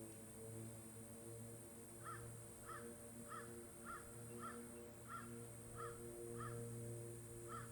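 A bird calling over and over, short calls about every half second to second, starting about two seconds in, over a faint low steady hum.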